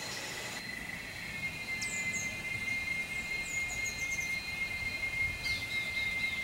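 Steady high-pitched insect drone, with a few short, high, falling chirps over it.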